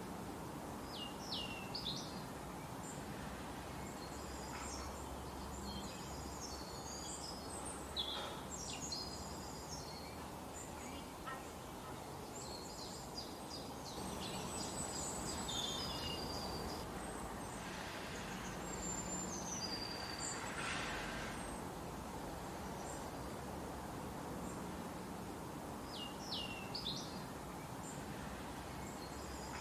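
Forest ambience: a steady background hiss with songbirds chirping and whistling in short high phrases, busiest through the first two-thirds and again near the end.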